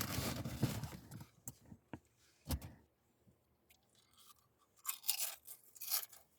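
People eating sub sandwiches: bites and chewing in irregular bursts, with a few sharp clicks and pauses between.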